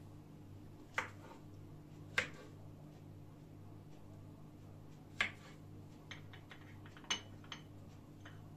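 A kitchen knife slicing through a banana and knocking on a plastic cutting board: a few sharp, irregularly spaced taps with some fainter ticks, over a steady low hum.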